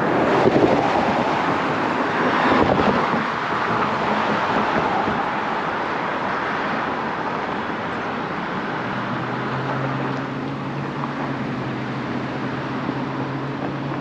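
Road traffic on a city street: a vehicle passes in the first few seconds, then a steadier traffic wash with a low, steady engine hum from about nine seconds in.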